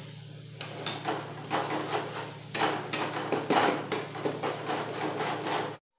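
Spatula scraping and knocking against a steel kadhai while stirring thick masala paste frying in oil, in repeated strokes over a steady low hum. The sound cuts off suddenly near the end.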